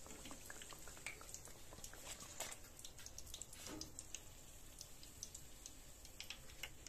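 Hot oil in a kadai faintly crackling and popping with many small, irregular pops as fried pakoras are lifted out with a wire skimmer.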